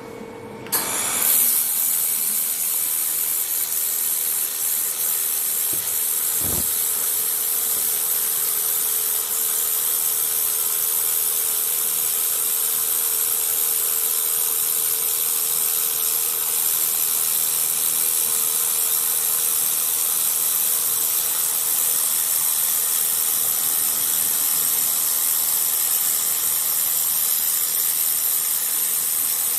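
Handheld fiber laser welding and cleaning machine working: a steady, loud hiss, mostly high-pitched, switches on about a second in, with a constant hum-like tone under it.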